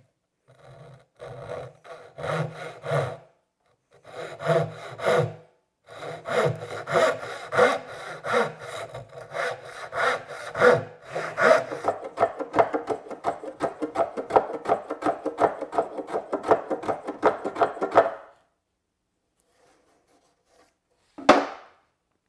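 Fine-tooth Japanese pull saw cutting across the end grain of a solid-wood table leg, strokes coming a couple a second in three runs with short pauses, then quicker, closer-spaced rubbing strokes for several seconds as a hand tool works the fresh cut edge. A single sharp knock near the end.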